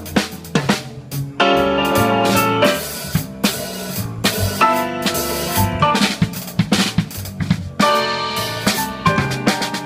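Live jazz combo playing, with a drum kit busy under the band: snare, bass drum and rimshot strokes. Held chords change about every three seconds.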